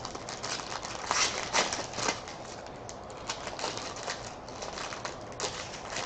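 Foil wrapper of an Upper Deck Premier hockey card pack crinkling and crackling as hands tear it open, in irregular bursts of crackles. The loudest come about one to two seconds in.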